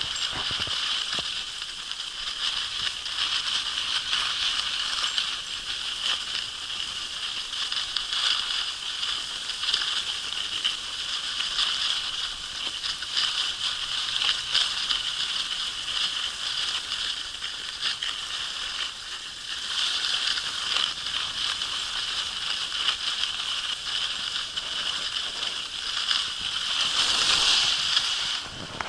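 Skis hissing and scraping over groomed snow as a husky tows the skier along; the scraping gets louder near the end.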